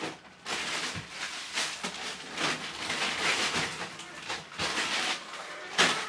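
Rummaging in a chest freezer: frozen bait packs rustling and scraping as they are shifted about, with a sharp knock near the end.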